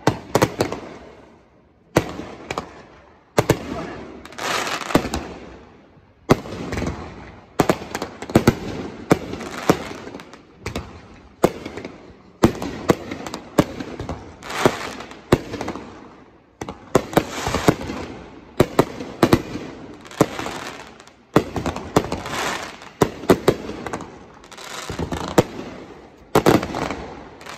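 Aerial fireworks going off in quick succession: sharp bangs every second or two, some in rapid clusters, each followed by crackling.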